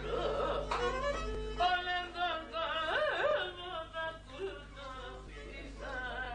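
A man singing a Pontic Greek song in a high, ornamented voice, the pitch wavering on held notes, over a bowed string accompaniment.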